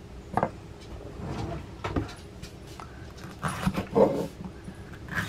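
Paring knife slicing a tomato on a wooden cutting board: a few short knocks and taps of the blade against the board, with short pitched squeaks, the loudest about four seconds in.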